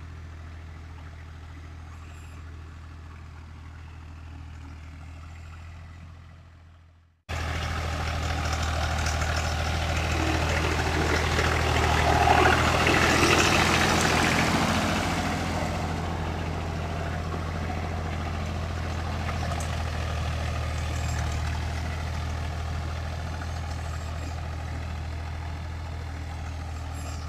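New Holland tractor's diesel engine running steadily, faint at first. After a cut about seven seconds in it is close and much louder, loudest a few seconds later, then steady.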